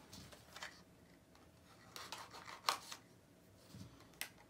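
Faint handling of a small cardboard blind box and its pin packaging: light rustling with a few sharp clicks and taps, the loudest just under three seconds in.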